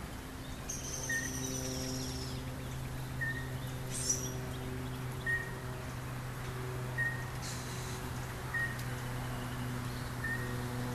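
Small birds calling: one repeats a short chip note about once a second while others whistle higher phrases, over a steady low hum.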